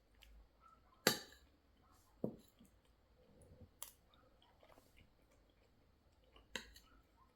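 A few sharp clicks and taps over quiet room tone, four in all, the loudest about a second in.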